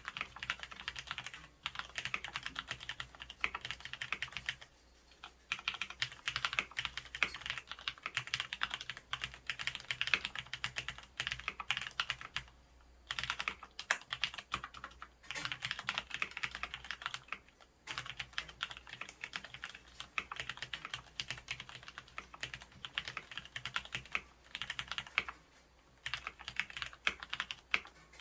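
Skydigital Mechanic Starter full-size mechanical keyboard with fully lubricated Cherry MX Red linear switches on stock springs, typed on in fast continuous runs of keystrokes. The typing stops briefly about five seconds in and a few more times, then picks up again.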